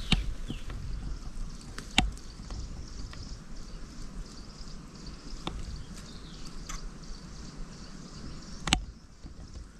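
Woodland ambience: a steady hiss with faint high chirps, broken by a few sharp clicks or knocks. The loudest knock comes near the end.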